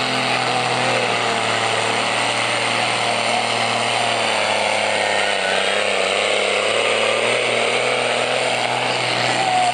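Steyr 1400 pulling tractor's engine running flat out under load during a pull, a loud, steady mechanical racket.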